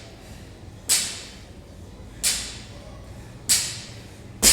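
Air-resistance rowing machine, its fan flywheel whooshing with each hard pull stroke: four whooshes about 1.3 seconds apart, each starting sharply and fading away.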